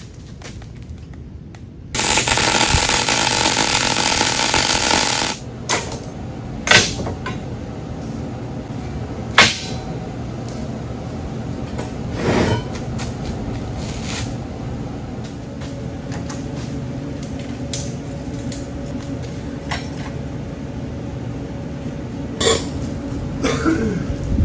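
Wire-feed welder's arc crackling in one steady weld of about three seconds, starting about two seconds in. After it come a few scattered sharp knocks.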